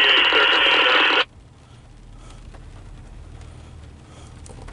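Scanner radio blaring a harsh burst of static noise for just over a second, which cuts off abruptly. A low steady hum is left under it.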